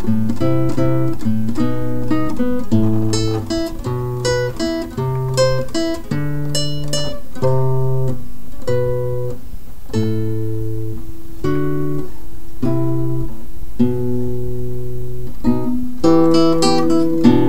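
Instrumental music on solo acoustic guitar: plucked melody notes over low bass notes, thinning out in the middle and picking up into quicker playing near the end.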